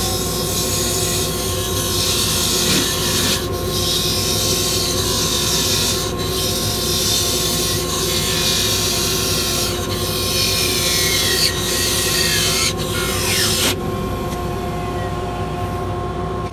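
A 1/8-inch parting tool cutting into spalted maple spinning on a mini lathe: a steady hiss of cutting, broken briefly every few seconds as the tool is eased back and forth, over the lathe motor's steady hum. The cutting stops about 14 seconds in as the parting cut goes through, and the motor keeps running.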